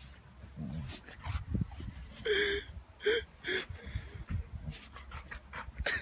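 A dog making short whimpering calls, one longer call about two seconds in followed by two brief ones, over a low rumbling noise.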